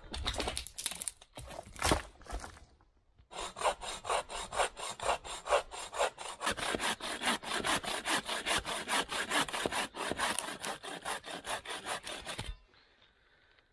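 A folding bow saw cutting through a log with quick back-and-forth strokes, about four a second, that stop near the end. Before the sawing there are a few rough scrapes and a sharp crack about two seconds in.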